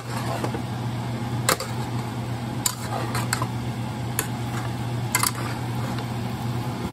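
A slotted spatula stirring beef and broccoli in sauce in a nonstick pot, scraping and clicking against the pot about seven times, over a steady hiss and low hum.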